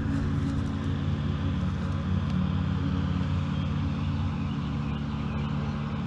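Lawnmower engine running steadily, a low unbroken drone.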